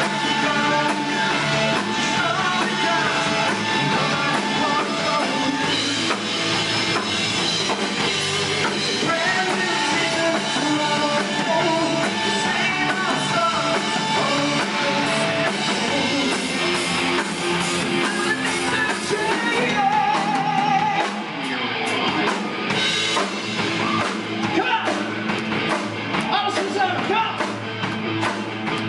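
Live rock band playing loud, with electric guitars, bass guitar, a drum kit and singing.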